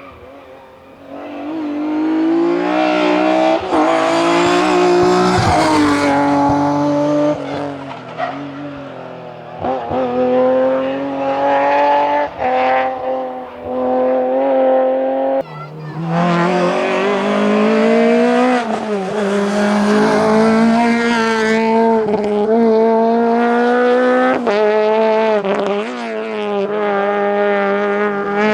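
Rally cars driven flat out on a tarmac stage. First a BMW E36's engine revs hard up and down through the gears, with tyres squealing. About halfway through, after an abrupt change, a Peugeot 208 VTi R2's engine takes over, revving high between gear changes.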